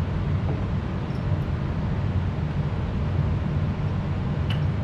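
A steady low mechanical hum, even throughout, with a couple of faint clicks near the end.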